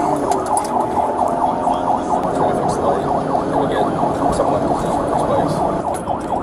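Police patrol car siren on a fast yelp: a rising-and-falling tone that repeats several times a second without a break.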